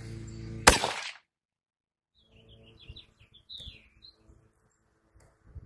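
A single rifle shot from a bolt-action rifle about a second in, cut off abruptly. Then birds chirp briefly in the background.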